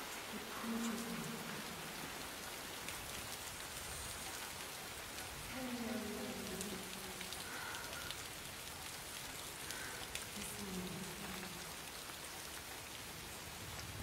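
Steady rain pouring down on a rooftop, with three faint falling tones about a second in, around six seconds and around eleven seconds.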